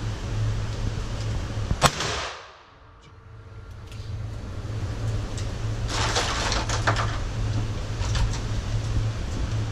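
A single revolver shot about two seconds in, a sharp crack with a short echo, from a stainless Ruger GP100 fired in an indoor range. A few lighter clicks and knocks follow later, over a steady low hum.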